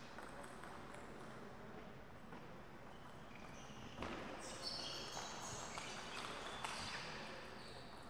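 A table tennis rally: the ball clicks sharply off paddles and the table in quick succession, starting about four seconds in and stopping about three seconds later.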